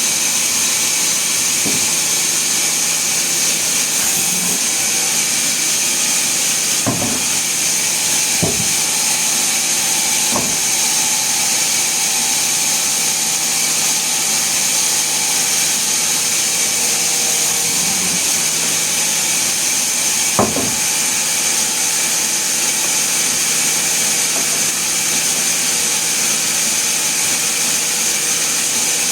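Sawmill saw running steadily, a constant high hiss, with a few knocks about two, seven, eight and a half, ten and twenty seconds in.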